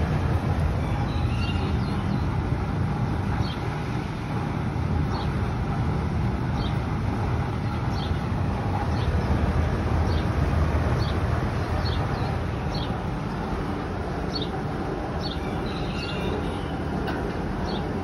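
Steady low rumble of a running fan, with short high bird chirps dotted through it about once or twice a second.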